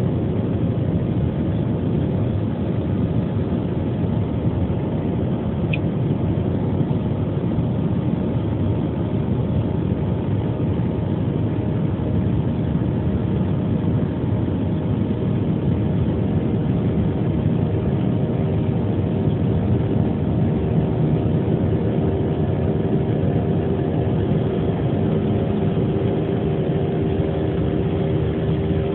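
Steady cabin noise of an IndiGo Airbus A320-family airliner climbing after takeoff: the jet engines' low rushing drone with a hum of several steady tones that grows a little stronger near the end, heard from inside the cabin.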